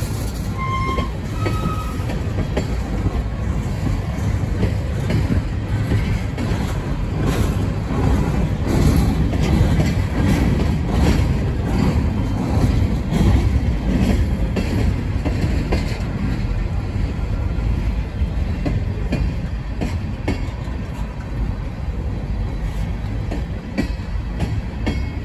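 Freight cars (tank cars and open-top gondolas) of a CSX train rolling past: a steady low rumble of steel wheels on rail, with irregular clicks as the trucks pass over rail joints, heaviest through the middle.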